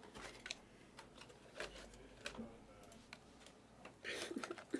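A quiet room with a few faint scattered clicks and taps, then a soft rustle of noise near the end.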